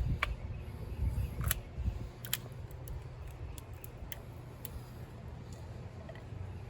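Scattered light clicks and taps from hand tools and engine parts being handled, about a dozen spread irregularly, over a steady low rumble.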